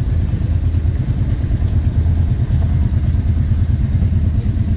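Kawasaki KVF 750 Brute Force ATV's V-twin engine running at low, steady revs as the quad is ridden slowly.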